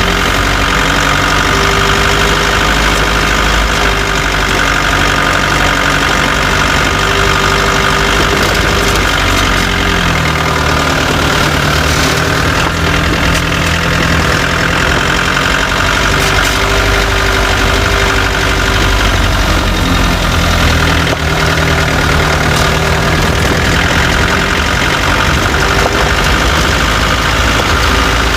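Chevrolet Tavera engine and running gear picked up by a microphone just under the right-hand tyre, a loud continuous mechanical din. The engine's pitch shifts about ten seconds in and again about twenty seconds in.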